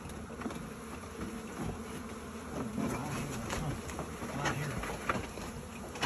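A mass of honey bees buzzing, agitated as their nest is disturbed, with a few faint clicks.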